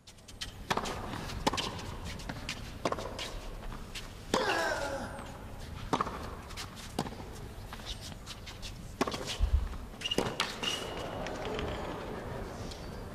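A tennis rally on a hard court: the serve and then racket strikes and ball bounces ringing out one after another, roughly every second or so, over a hushed arena.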